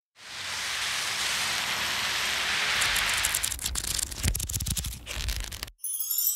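Logo-reveal sound effects: a swelling whoosh of noise for about three seconds, then a stuttering glitch of rapid clicks and low booms that cuts off suddenly, with a sparkling chime starting right at the end.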